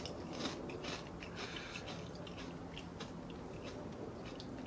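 People chewing wavy potato chips: a run of faint, irregular crunches.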